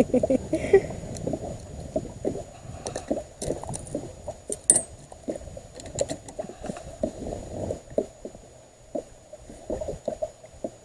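Irregular clicks, knocks and rustles of handling as long-handled pliers work a hook out of a catfish's mouth on a boat deck, with one sharper click near the middle.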